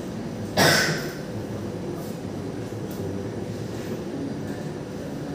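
Steady low rumbling background noise, with one short, loud clatter about half a second in.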